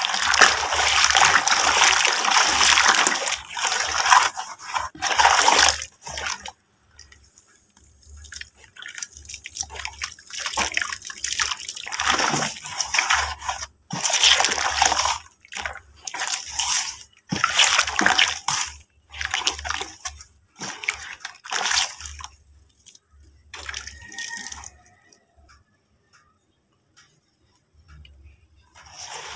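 Hands sloshing and splashing muddy red-dirt water in a plastic tub. The sloshing is continuous for the first few seconds, then comes in shorter bursts that thin out and nearly stop near the end.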